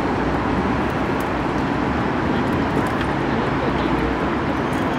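Steady outdoor background noise of motor traffic: a continuous, even hum and hiss with no distinct events.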